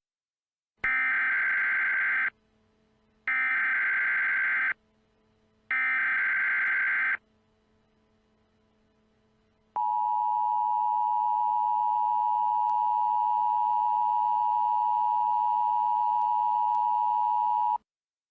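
Emergency Alert System header: three short bursts of warbling digital data tones, then a long steady attention tone that cuts off sharply. Together they signal the start of a new alert.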